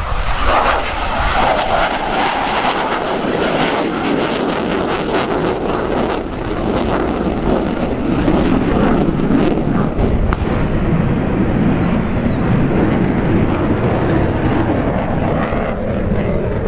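Jet noise from an F/A-18F Super Hornet's twin General Electric F414 engines, loud and crackling through the first several seconds, then settling into a steadier rushing sound.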